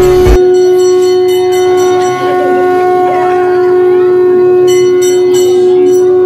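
Conch shell (shankha) blown as one long, steady note.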